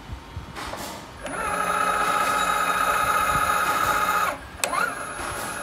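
Drill spindle cutting into a metal bracket held in a machine vice: a steady high whine sets in about a second in, holds for about three seconds and stops suddenly, followed by a sharp click and a brief rising-then-falling squeak.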